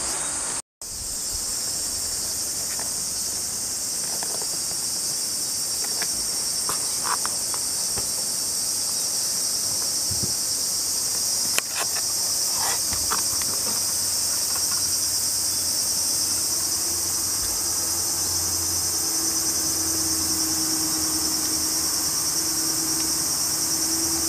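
A steady, high-pitched chorus of insects shrilling without a break, with a few faint clicks partway through.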